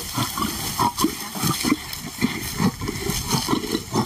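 Lions growling in many short, uneven pulses, a male warning a lioness away from meat.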